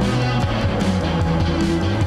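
Instrumental background music with guitar.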